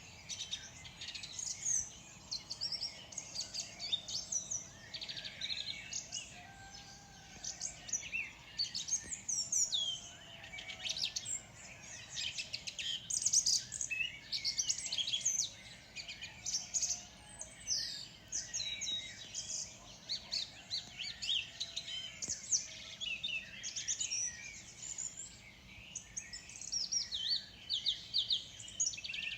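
Dawn chorus: several small songbirds singing and chirping at once, a steady stream of quick high chirps, trills and short whistled phrases overlapping.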